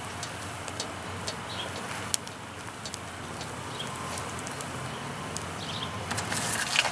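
Fatwood kindling burning, crackling with scattered small pops, one sharper pop about two seconds in. Faint bird chirps now and then.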